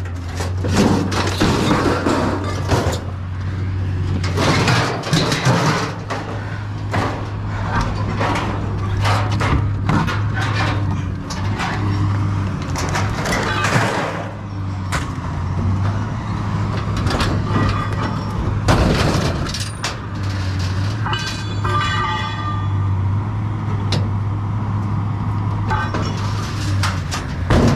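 Sheet-metal appliance bodies (a dishwasher and a washing machine) being shoved and dragged in a truck bed: repeated clanging, banging and scraping, with a brief screechy metal-on-metal squeal about three quarters of the way through. A steady low engine hum runs underneath.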